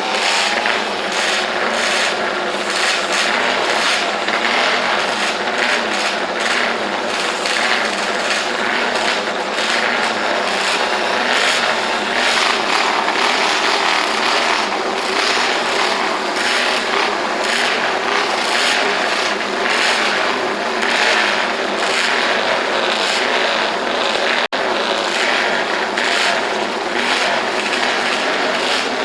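Motorcycle engines running loudly and revving, rising and falling in repeated surges, with a brief break about three-quarters of the way through.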